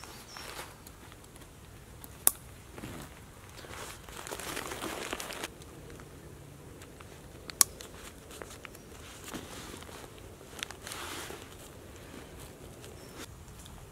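Osprey 65-litre rucksack being put on and adjusted: nylon fabric and straps rustle, a strap is pulled through with a swish about four seconds in, and plastic side-release buckles snap shut with two sharp clicks, about two seconds in and again past seven seconds.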